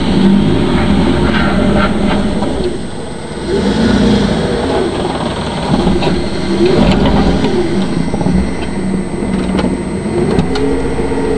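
Ford F-150 pickup's engine revving up and falling back several times as the truck drives close past through the snow.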